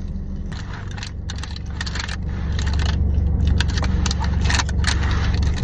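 Close-up crunching of tortilla chips being chewed, in quick irregular crisp bursts, over a steady low hum.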